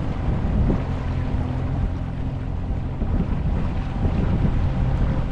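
Boat engine running steadily, with wind on the microphone.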